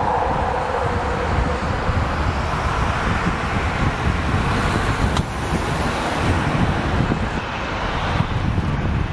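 Jet engines of a Boeing 737-800 running at taxi power as it turns onto the runway, a steady low rumble. A car passes close by around the middle, and wind buffets the microphone.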